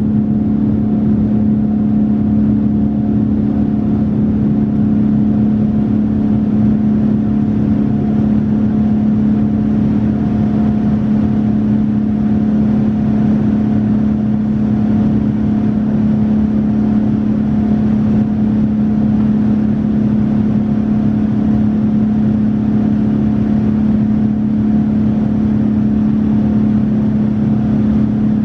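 Boeing 787-9 cabin noise during the climb after takeoff, heard inside the cabin over the wing: the Rolls-Royce Trent 1000 turbofans give a steady low hum under an even rush of airflow noise.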